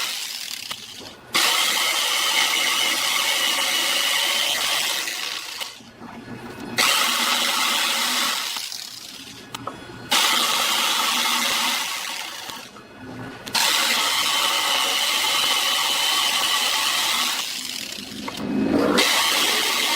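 Electric power drill running in repeated bursts with a steady high whine. It is switched on at full speed, then let to spin down, about four times. Near the end it ramps up from low speed.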